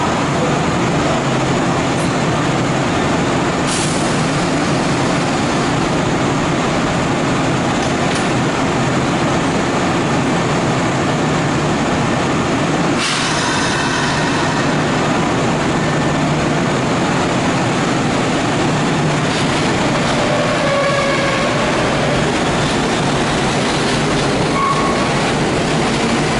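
Kintetsu 2000 series electric train standing at an underground platform, its onboard equipment giving a loud, steady running noise. A short sharp hiss comes about halfway through.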